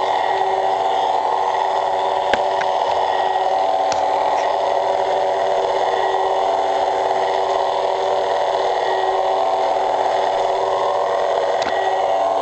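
Several replica lightsabers' sound boards playing their idle hum at once: a loud, steady electronic drone with a few faint clicks.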